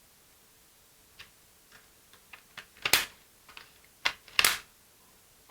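A few sharp snips and clicks, the two loudest about three and four and a half seconds in: a keyboard's plastic part with its circuit tracks being cut through.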